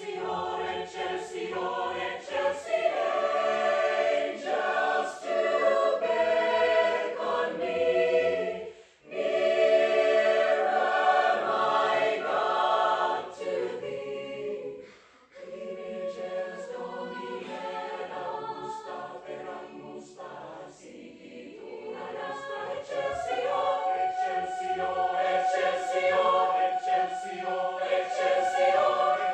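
Mixed choir of men's and women's voices singing in harmony, with short breaks between phrases about nine and fifteen seconds in, growing louder toward the end.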